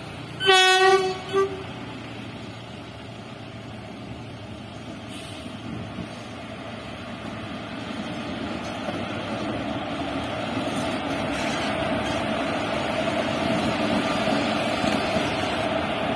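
A horn sounds twice, a loud toot and then a short one, then an Indian Railways WAP-4 electric locomotive hauling an express runs up, its running noise growing steadily louder as it nears and passes, with a steady hum in the second half.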